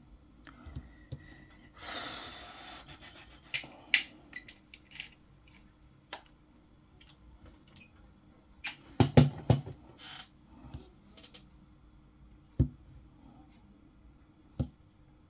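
Handling noises of an iPhone and small repair tools on a work mat: scattered clicks, taps and knocks, with a short rustling hiss about two seconds in and a louder cluster of knocks around the middle.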